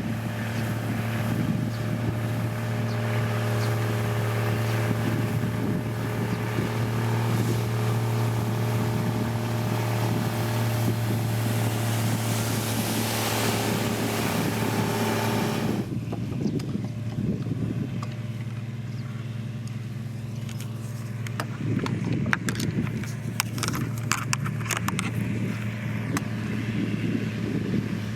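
Diesel engine of heavy road-construction machinery running steadily, with a rushing noise over it that cuts off suddenly just past halfway. Scattered clicks and cracks come a few seconds later.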